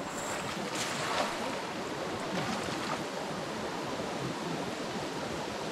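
Steady wash of river water flowing over a shallow, rocky riffle.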